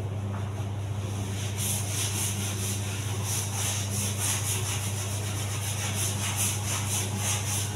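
Scrubbing cement and paint residue off a ceramic floor tile by hand with a small pad, a rhythm of quick, hissy back-and-forth strokes that picks up about a second and a half in. A steady low hum runs underneath.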